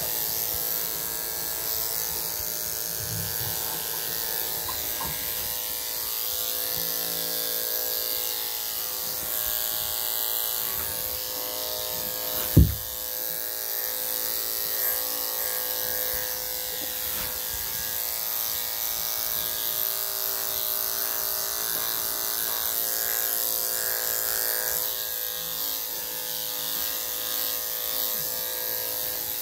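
Corded electric dog clippers with a #3 3/4 blade running steadily while shaving down a Shih Tzu's curly body coat. One sharp knock about twelve seconds in.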